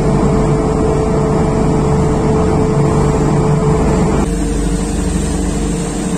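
Loud, steady drone of a ship's engines, with a constant hum over a dense low rumble. About four seconds in it cuts abruptly to a different steady engine drone.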